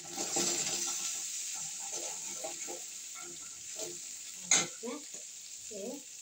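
Tempering spices (mustard seeds, cumin, dried red chillies, garlic and asafoetida) sizzling in hot oil in an aluminium kadai while a steel ladle stirs and scrapes. The sizzle is strongest in the first second or so. About four and a half seconds in there is one sharp metal clink of the ladle against the pan.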